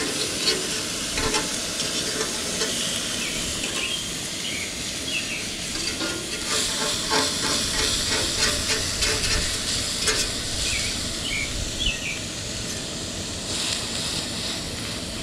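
A beef burger patty sizzling on a hot griddle over a propane camp stove. Scattered clicks and scrapes come from a metal fork against the griddle as the patty is pushed about, busiest in the middle of the stretch.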